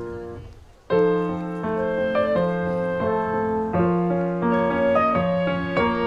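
Background piano music. One passage fades away, and a new piano piece starts abruptly about a second in with a steady run of notes.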